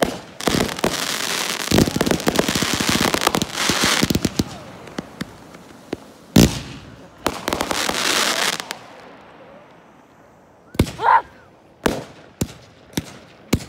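Aerial fireworks shells bursting: a dense crackling for the first few seconds, one loud bang about six seconds in, another spell of crackling, then a string of separate sharp bangs near the end.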